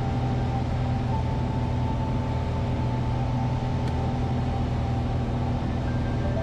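Steady drone of a single-engine light airplane's piston engine and propeller in flight, heard from inside the cockpit.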